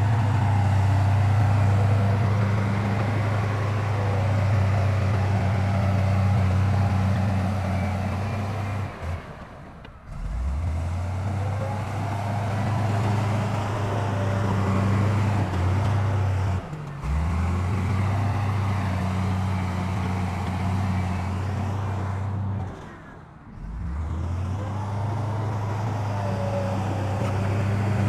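Heavy diesel engine of earthmoving machinery running steadily with a low drone, breaking off abruptly and coming back three times, about 9, 17 and 23 seconds in.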